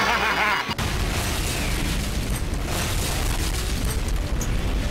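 Explosion sound effect: a sudden boom about a second in that turns into a steady, deep rumble and carries on.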